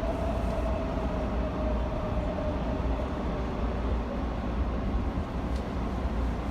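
Steady low rumble of a moving vehicle, with a faint tone that slowly drops in pitch and fades over the first couple of seconds.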